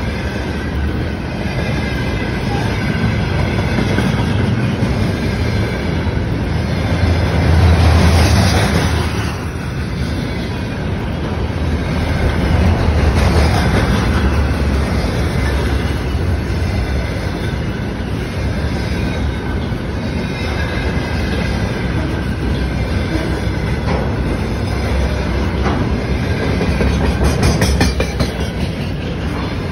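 A freight train of container flat wagons rolling past close by: a steady rumble of steel wheels on the rails that swells several times as bogies go by.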